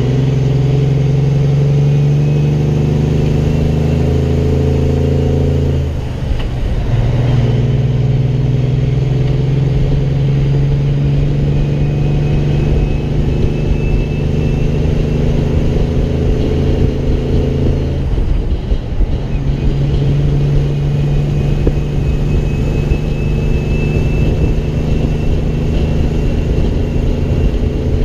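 Peterbilt semi truck's diesel engine pulling steadily while driving, with road and wind rumble. The engine note breaks up briefly twice, about six seconds in and again near eighteen seconds, then picks up again.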